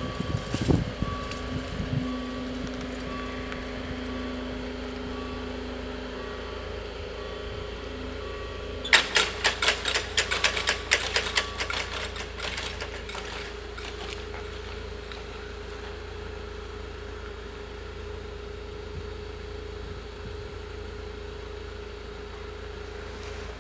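Level-crossing warning bell sounding a repeating electronic ding while the barriers lower. About nine seconds in comes a loud, rapid metallic clatter lasting about three seconds as the barrier booms and their hanging grilles come down and settle, followed by a steady low hum.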